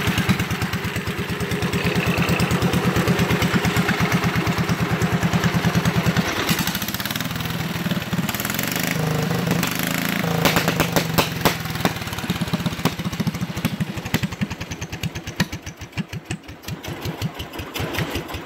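A garden pulling tractor's small engine running steadily just after a choked start, with evenly spaced firing beats; its note changes about six seconds in. Near the end the beats slow and spread apart, and the engine dies away as it is shut off.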